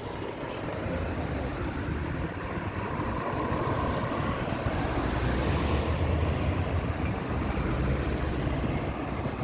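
Road traffic noise: motor vehicles running past on a busy road, swelling a little a few seconds in as a vehicle goes by.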